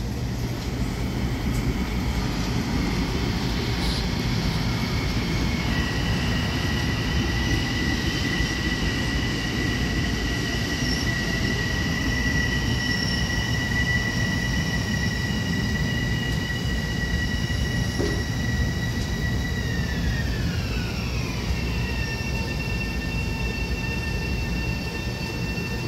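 Long Island Rail Road M7 electric multiple-unit train running on the tracks, a continuous rumble under a high two-note whine. The whine sets in about six seconds in, holds steady, then slides down in pitch about twenty seconds in and settles on a lower note.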